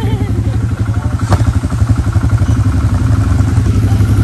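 ATV engine running under way, a steady low, rapid throb, with one sharp knock about a second in.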